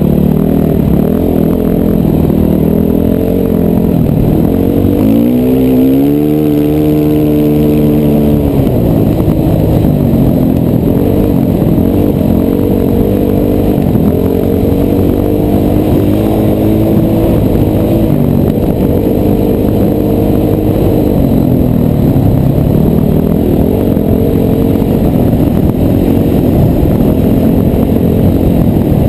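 Dirt bike engine running under the rider while riding on sand, the revs rising and falling with the throttle. About six seconds in the revs climb sharply and hold high for a couple of seconds before dropping back.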